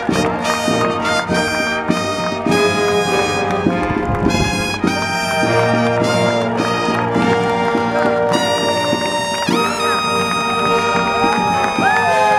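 Brass band music, with trumpets and trombones playing a tune of short and held notes.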